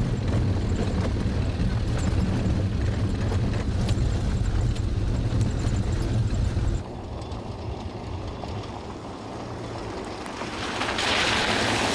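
A UAZ-452 van driving over rough steppe, heard from inside the cabin as a loud, deep engine and road rumble. After a cut about seven seconds in it is quieter, and near the end a loud hiss of water spraying as the van drives through an icy puddle.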